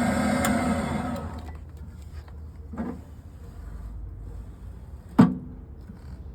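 Matsumoto Kikai PS-1F-5 welding positioner's electric motor and gear drive running steadily, then winding down and stopping about a second and a half in. Two knocks follow, a faint one near the middle and a sharp, louder one near the end.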